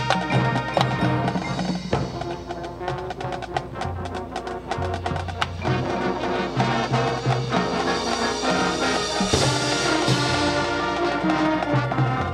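Marching band playing a field show: brass ensemble over drums and front-ensemble percussion, with the sound swelling brighter about nine seconds in.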